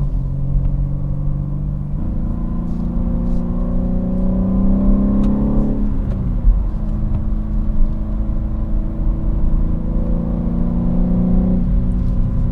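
BMW G80 M3's twin-turbo inline-six accelerating hard under load, heard inside the cabin, where part of the note is synthetic engine sound played through the speakers. The engine note climbs steadily, drops sharply at a gear change about six seconds in, climbs again and drops once more near the end.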